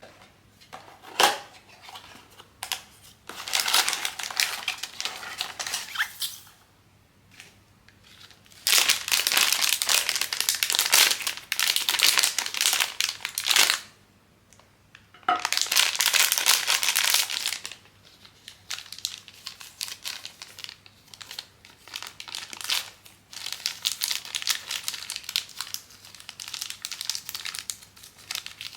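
Plastic blind-box packaging being crinkled and torn open by hand, in long rustling stretches with quieter handling between them. A sharp click comes about a second in.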